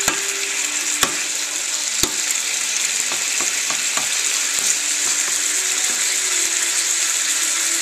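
Carrots sizzling in a hot nonstick frying pan in a stir-fry sauce, a steady hiss. A wooden spoon stirs and knocks against the pan, with a few sharp knocks in the first two seconds and then lighter scattered clicks.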